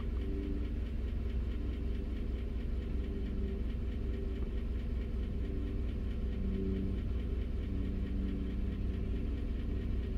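2015 GMC Sierra's 5.3-litre direct-injected V8 idling steadily during an automated injector balance test, the ECM pulsing one injector at a time. The engine is one that the owner believes needs injectors and intake-valve carbon cleaning, after a fuel-imbalance code and a stumble.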